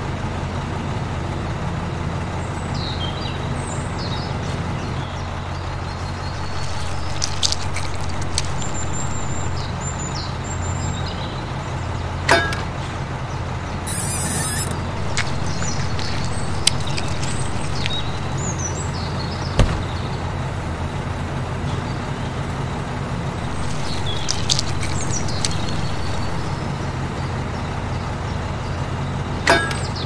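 Small electric motor of a miniature toy concrete mixer humming steadily while wet concrete pours from its chute into a steel bowl. There are a few sharp clicks and some short high chirps.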